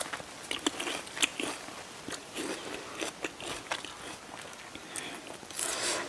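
Close-miked chewing of crisp, juicy bilimbi (belimbing wuluh) fruit, a run of short wet crunches and mouth clicks. Near the end there is a louder, noisier stretch.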